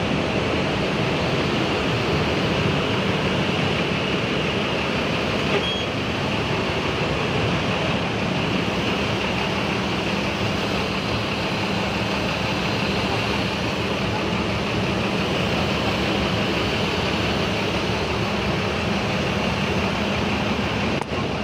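Steady drone of a ferry's engines and ventilation on its enclosed car deck while the ship is underway, a constant low hum under dense machinery noise.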